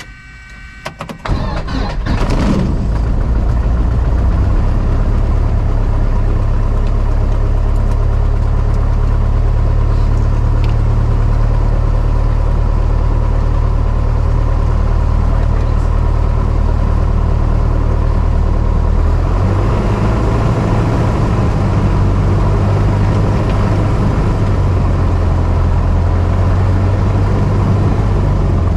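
Single-engine Cessna's piston engine catching after a few sputters about a second in, then running steadily; its low hum steps up slightly about two-thirds of the way through.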